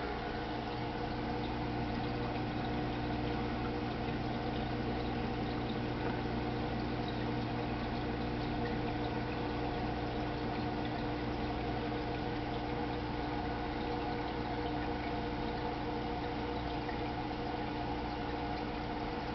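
Aquarium equipment running steadily: a constant motor hum with the sound of moving, bubbling water.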